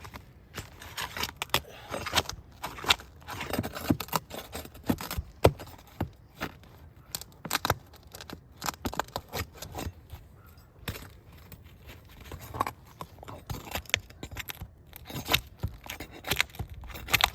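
Roof shingle being worked loose by hand: irregular scraping, crackling and sharp clicks as it is pried, lifted and pulled at the underlayment it is stuck to.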